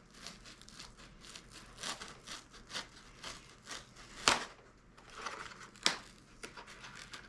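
Old balsa sheeting being pried and peeled off a foam wing core with a chisel: an irregular run of small crackles and tearing, with two sharper cracks a little after the middle as pieces of balsa break loose.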